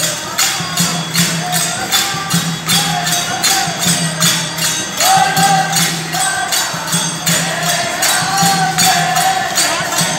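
Devotional bhajan-kirtan: voices singing a chant-like melody in unison over a steady beat of manjira, small brass hand cymbals. A steady low drone runs beneath.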